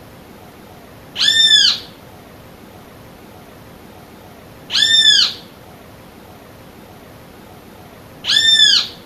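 Great kiskadee (bem-te-vi) calling: three identical drawn-out calls, each rising then falling in pitch, evenly spaced about three and a half seconds apart.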